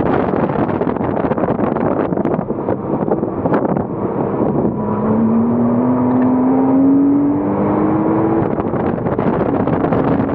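Porsche Cayman S's 3.4-litre flat-six heard from on board on track under heavy rushing wind noise; about halfway through the engine's pitch climbs steadily for three to four seconds as it accelerates, and starts rising again near the end.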